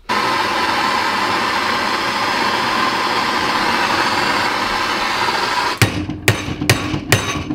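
Handheld gas torch flame hissing steadily as it heats a strut's top mount to free seized bolts. About six seconds in, it gives way to a run of sharp hammer strikes on the bolts, about two and a half a second.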